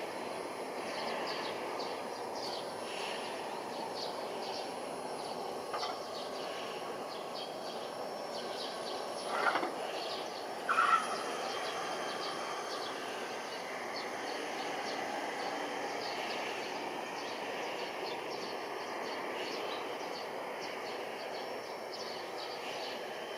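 Steady distant outdoor rumble of city noise, with scattered faint ticks and two brief, louder high-pitched sounds about ten and eleven seconds in.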